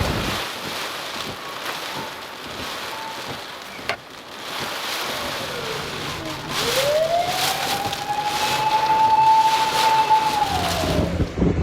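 Typhoon wind and rain rushing over the microphone, with a siren wailing over it. About five seconds in the siren's tone falls, then rises to a steady high note held for about three seconds, and falls away near the end.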